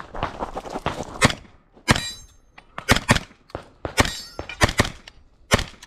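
Handgun shots fired in quick, uneven strings, about eight in all, during a practical shooting stage. A metallic ring lingers after a couple of them.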